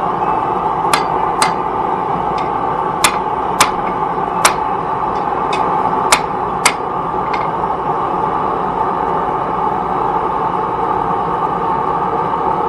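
Hand hammer striking hot steel on an anvil while forging a knife: about eight sharp ringing blows at an uneven pace over the first seven seconds, then the hammering stops. A steady rushing noise runs underneath.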